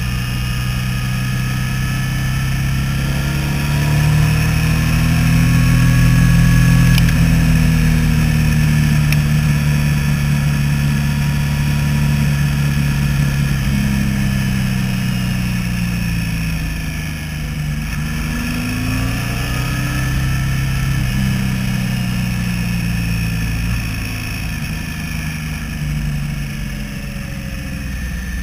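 Motorcycle engine running under way, heard on board, its revs rising and falling several times as the rider accelerates and eases off, over a steady low rumble.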